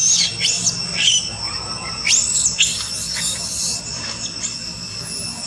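Long-tailed macaque screaming: about five short, high-pitched squeals that rise and fall, bunched in the first four seconds.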